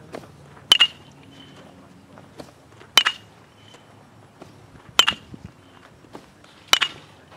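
Baseball bat striking batted balls four times, about two seconds apart: each hit is a sharp crack with a short ringing tone, followed by a softer knock.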